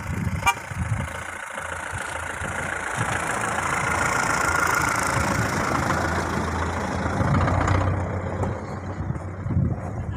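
A vehicle driving past close by, its engine and tyre noise swelling to a peak in the middle and dropping away sharply near the end. A short beep comes about half a second in.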